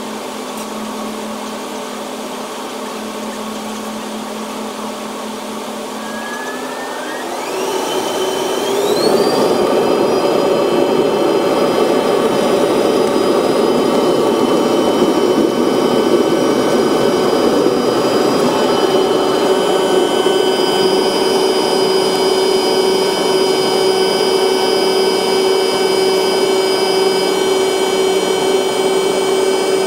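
Boeing 777-300 jet engine heard through the cabin window, spooling up to takeoff thrust: a rising whine from about seven seconds in as the sound grows louder. It then runs steadily at high power, with several steady whining tones over the rushing noise, through the takeoff roll and climb-out.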